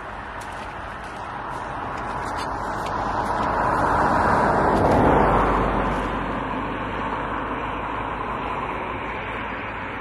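A road vehicle passing by: its engine and road noise swell gradually to a peak about five seconds in, then fade away.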